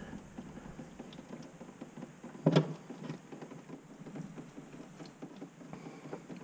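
Old engine oil dripping from the freshly opened oil filter mount onto a rag, a quick irregular run of small drips, with one sharper knock about two and a half seconds in.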